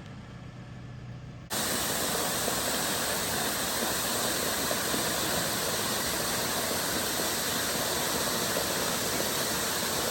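Waterfall rushing: a loud, steady wash of falling water that cuts in abruptly about a second and a half in, after a quieter outdoor background.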